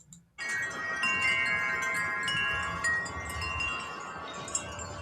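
Several wind chimes ringing together, with many overlapping tones that slowly fade, over a low rumble. They start abruptly about half a second in after a moment of near silence.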